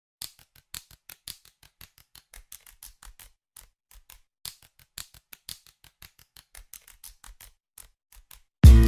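A quick, irregular run of light clicks, several a second. Loud music with guitar comes in near the end.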